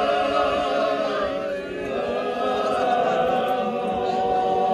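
A group of men singing together a cappella in harmony, holding long, drawn-out notes.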